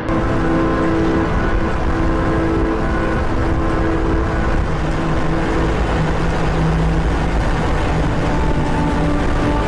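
Car driving at highway speed, heard from inside the cabin: steady road and wind noise with a low engine hum.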